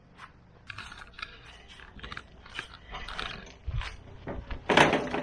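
Metal-framed wooden hand cart being pulled out and wheeled along, its frame and wheels rattling and clanking in irregular knocks, with a louder clatter near the end.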